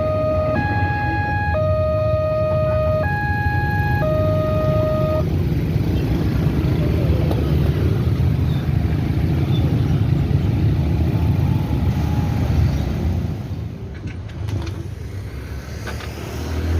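Railway level-crossing warning alarm sounding an electronic two-tone, high-low pattern that switches about every half second. It cuts off about five seconds in. Under it, a loud low rumble continues until around thirteen seconds, then fades.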